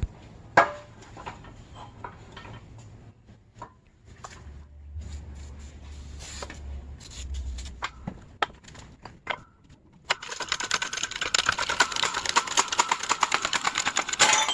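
Scattered metal knocks and clinks of tools working a bushing out of a Honda rear trailing arm. About ten seconds in, they give way to a dense, fast metallic rattle.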